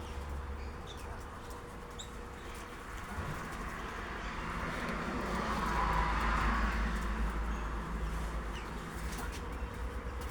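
Wild birds calling, with a few short high chirps, over a steady low rumble that swells a few seconds in.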